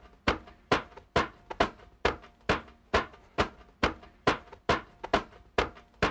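A steady percussive beat of sharp hits, a little over two a second, with faint held tones beneath: the sparse intro of a song's backing track, just before the ukulele comes in.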